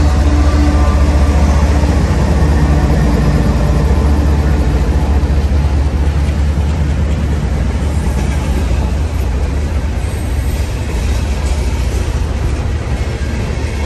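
GE ES44AC diesel locomotives passing close by at the head of an empty coal train, with a deep, steady engine drone. The drone eases a little as the units go by and the empty coal cars start rolling past near the end.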